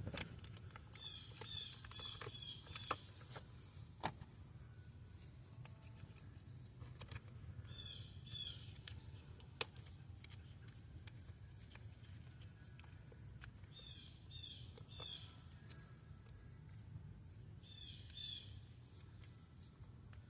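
A bird chirping in short bursts of quick repeated notes every few seconds, with a few faint sharp clicks and taps between them.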